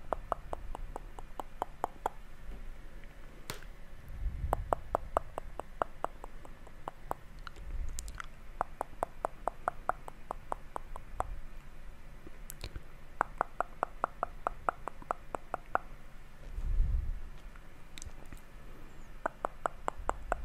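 Close-miked wet mouth sounds: rapid runs of tongue and lip clicks, several a second, each run lasting a couple of seconds with short pauses between. A few soft, low, muffled thumps on the microphone come in between the runs.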